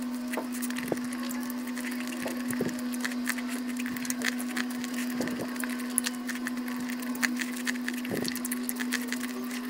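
Corn on the cob being bitten and chewed close to the microphone: a scatter of small crunchy clicks and mouth sounds, over a steady low hum.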